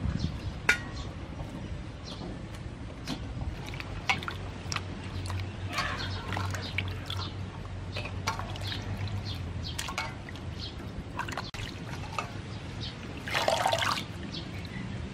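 Hands swishing salad greens and herbs in water in a stainless steel bowl: light splashes and drips throughout, with a louder burst of splashing water near the end.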